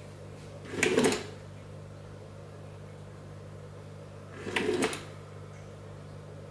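FroliCat FLIK automatic cat toy's battery-driven motor whirring in two short bursts, about a second in and again after about four and a half seconds, as it flicks its string at random intervals.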